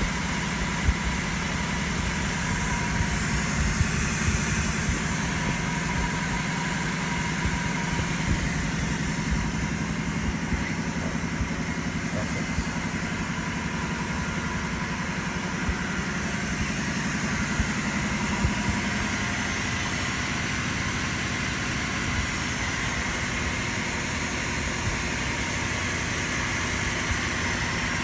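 Bema 3D engraving and duplicating milling machine running, a steady motor hum with a faint held whine.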